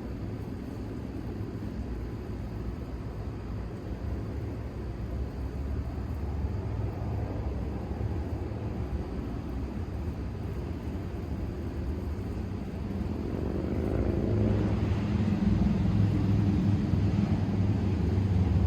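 Low rumble of a distant engine, growing louder over the last few seconds.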